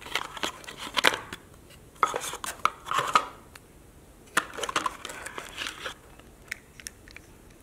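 Hands unpacking a small cardboard box: irregular clicks, taps and rustles of the cardboard insert and the plastic controller and wiring harness being lifted out, loudest about a second in and again two to three seconds in.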